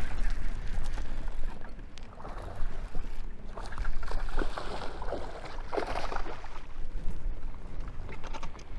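Water splashing as a hooked bass thrashes at the surface beside the boat, in several bursts, the loudest about six seconds in, over a steady low rumble.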